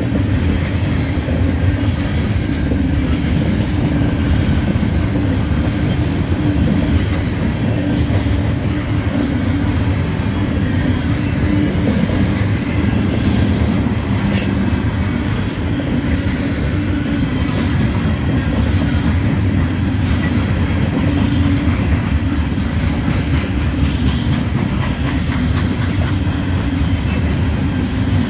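Loaded coal hopper cars of a CSX freight train rolling by, their wheels on the rails making a steady low rumble. A single sharp click sounds about halfway through.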